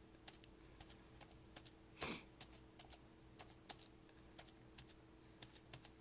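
Soft, irregular clicks and taps of a foam dauber brush being stamped onto a damp paper towel laid over wax paper, with one louder, longer scratchy rustle about two seconds in.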